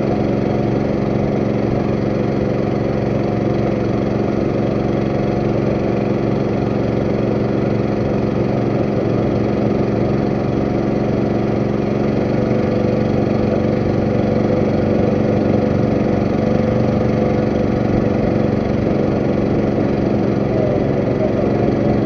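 Boat engine running steadily, a constant drone whose note shifts slightly about halfway through.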